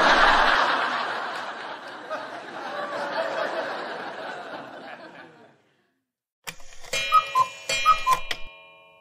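Canned studio-audience laughter, loudest at the start and fading out over about five and a half seconds. After a short silence, a brief clock-like sound effect of rapid ticks and ringing chimes, which rings out near the end.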